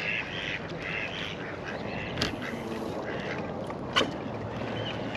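Ducks quacking, a quick run of repeated calls in the first second and a half, then fewer calls, over a steady background hum. Two sharp clicks come about two and four seconds in.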